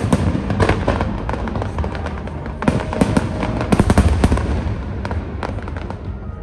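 Fireworks display: a quick run of bangs and crackling bursts over a continuous low rumble, thickening into dense volleys about three and four seconds in.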